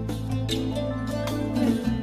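Instrumental background music: plucked notes over a held low bass note, which drops out briefly near the end.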